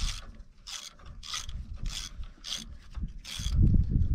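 Hand socket ratchet clicking in short repeated strokes, about six in a row a little over half a second apart, as a nut on the starter cable terminal is worked loose. There are dull knocks near the end.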